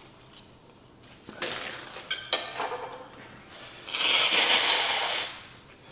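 Paper napkin rustling, then a man blowing his nose hard into the napkin for about a second near the end. His nose is running from the heat of the chile peppers.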